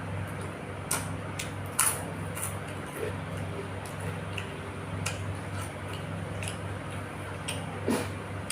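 Close-miked eating: scattered mouth clicks and smacks of someone chewing food, over a steady low hum.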